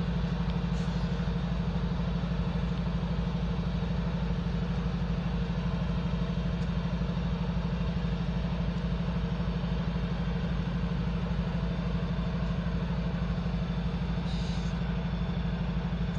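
Diesel-electric freight locomotive idling with a steady, evenly pulsing low hum. A brief hiss comes about fourteen seconds in.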